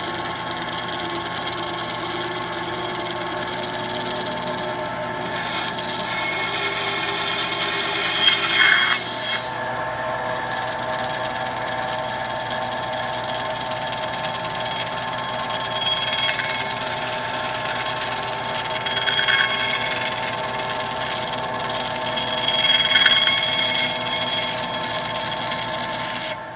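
Skil 3386 benchtop band saw with a 1/4-inch 6 TPI blade running steadily, slicing through high-density foam. The sound grows louder briefly about four times during the cut.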